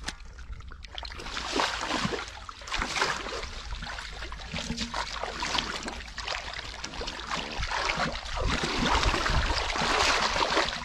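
Hands and feet splashing and sloshing in shallow muddy water while groping through the mud for fish, with short wet slaps and squelches, growing louder in the last few seconds.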